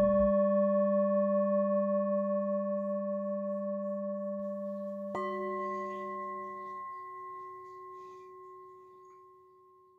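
A struck bell tone rings out with a slow, wavering fade. About five seconds in, a second, higher-pitched bell is struck and fades away to near silence near the end.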